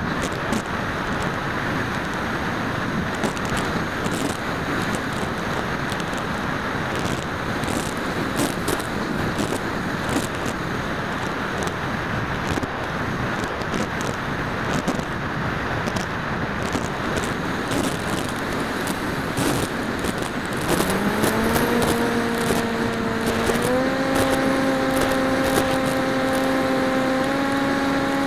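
Steady rush of air on a small FPV flying wing's onboard camera microphone, then about two-thirds of the way in its electric motor and propeller spool up in a rising whine, stepping up in pitch once more and holding steady.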